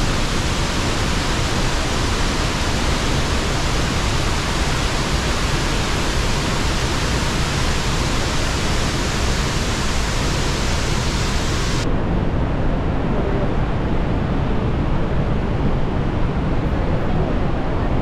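Iguazu Falls waterfall pouring: a steady, loud rush of falling water. About twelve seconds in, it abruptly turns duller, losing its hiss.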